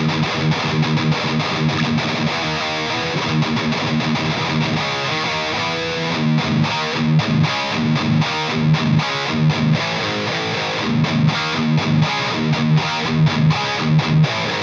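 Electric guitar played through an EVH 5150 III LBX tube amp head on a high-gain, distorted setting, riffing with repeated low chugging notes in a steady rhythm.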